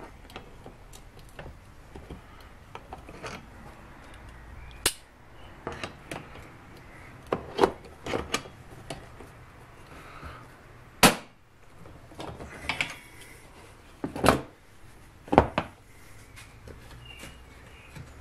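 Sharp metal clicks and knocks from water pump pliers and an open-end spanner working a car windscreen wiper arm loose from its spindle. About half a dozen loud clicks come among lighter ticks and scrapes.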